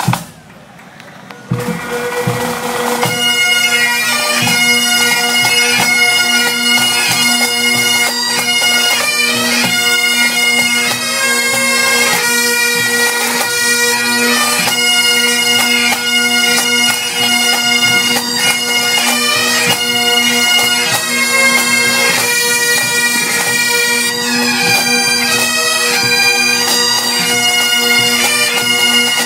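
Bagpipes playing a melody over a steady drone, coming in about two seconds in after a brief quieter moment.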